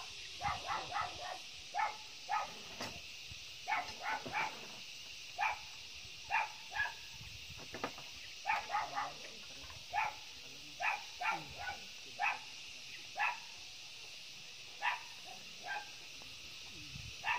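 A dog barking repeatedly in short, irregular barks, some in quick pairs and threes, over a steady high-pitched hiss.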